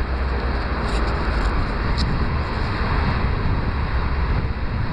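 Steady outdoor rumble and hiss picked up by the camcorder's built-in microphone, with one short high chirp about two seconds in.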